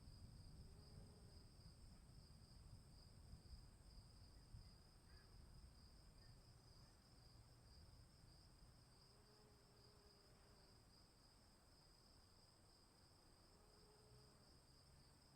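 Faint outdoor storm ambience: insects chirring in two steady high tones throughout, under a low rumble of distant thunder that fades away over the first several seconds.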